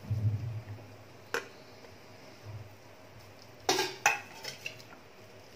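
Crumbled boiled potato dropping with soft thuds into a nonstick frying pan. There is a sharp knock on the pan about a second in, and two clattering knocks just before the four-second mark.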